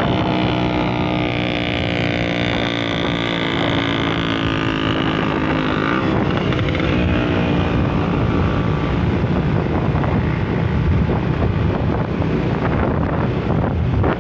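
Motorcycle engine running steadily under way, heard from the pillion seat with wind rushing over the microphone. About halfway through, the engine's steady tone sinks under the wind noise.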